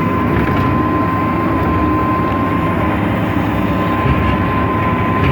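Sierra logger baler running steadily: a loud, constant machine drone with a steady high whine over it.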